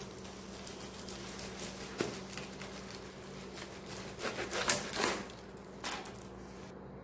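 Plastic bubble wrap crinkling and rustling as hands pull and tug at it, with scattered crackles that are loudest about four to five seconds in.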